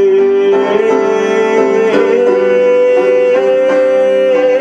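Male voice holding a long sung note, stepping up to a higher held note about two seconds in, over instrumental accompaniment.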